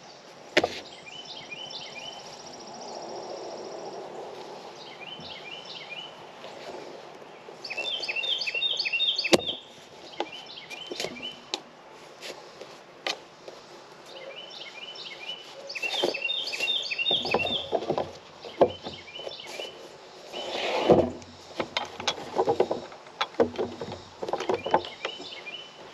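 Hands working a plywood board, vinyl seat cushion and metal seat bracket: a stretch of rustling, then a series of sharp knocks and clicks of wood against metal. A bird sings a short chirping phrase over and over in the background.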